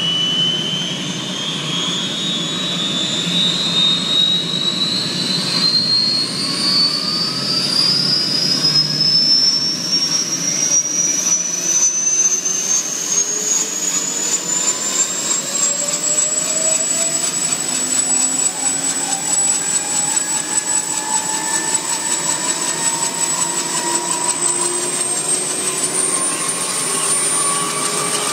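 Kaman K-MAX helicopter's turboshaft engine spooling up on the ground as the intermeshing rotors gather speed. A high whine rises steadily for about fifteen seconds and then holds steady, while lower tones keep climbing underneath.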